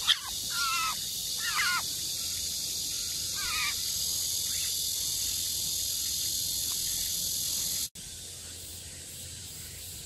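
Eurasian jay giving several short harsh calls that bend up and down in pitch in the first four seconds, over a steady high-pitched drone of summer insects that drops away abruptly near the end.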